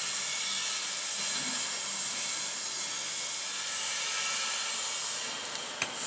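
Steady hissing noise with a faint low hum beneath it, and a brief click near the end.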